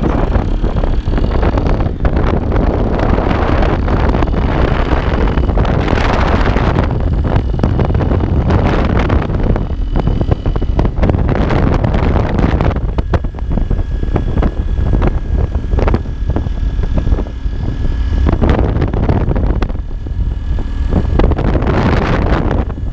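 Wind buffeting the microphone on a moving motorcycle, with the engine running underneath.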